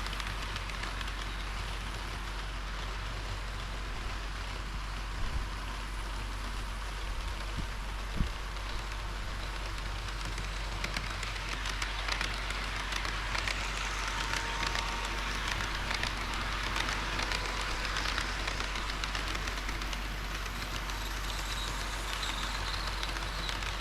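HO-scale model train running on layout track: a steady rolling hiss of wheels on rail, with two sharp clicks about five and eight seconds in.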